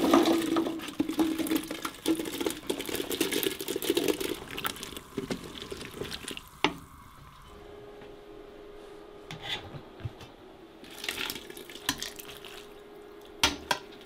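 Water splashing and sloshing in a stainless steel stockpot as Brussels sprouts are tipped in to blanch, then a few sharp clanks of metal on metal from the pot, its lid and a spoon, over a faint steady hum in the second half.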